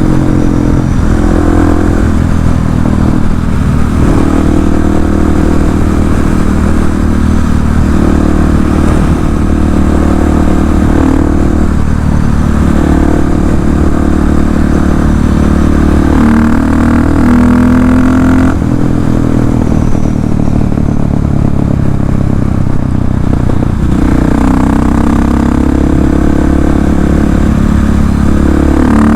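KTM 690 SMC R's single-cylinder engine running loud through an Arrow exhaust with its dB-eater removed, heard from the bike while riding. The engine note rises and drops several times as the throttle opens and closes through the gears.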